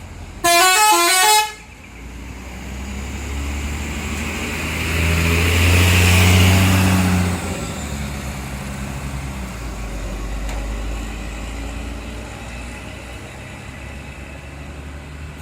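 Tour bus's telolet 'basuri' musical horn plays a quick run of stepped notes for about a second. The bus's engine then pulls away past the listener, loudest about six seconds in, and fades to a low rumble.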